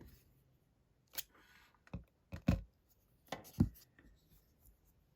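A handful of short clicks and knocks from sonic screwdriver replica props being handled, spread over a few seconds.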